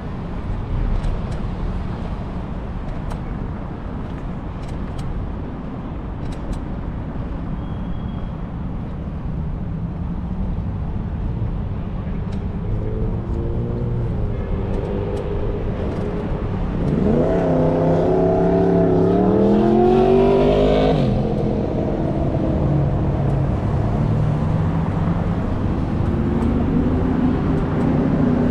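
Road traffic alongside a sidewalk: a steady rumble of cars, with a vehicle's engine accelerating about two-thirds of the way through, its pitch climbing and dropping in steps, and another engine near the end.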